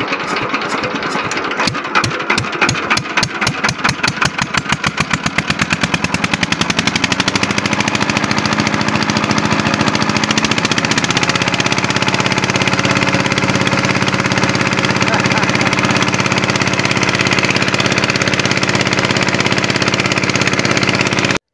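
Stationary tubewell pump engine catching and speeding up, its separate beats quickening over the first several seconds until it settles into a steady run. It cuts off suddenly near the end.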